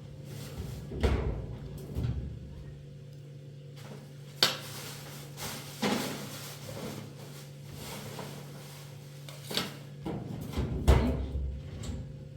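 Six or so separate knocks and thumps, a few seconds apart, over a steady low hum.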